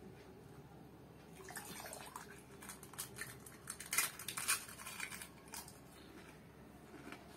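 Eating a puchka (pani puri): a wet, crisp shell filled with tamarind water crunching and slurping in the mouth, a cluster of crackles and wet clicks from about a second and a half in to about five and a half seconds, loudest around the bite.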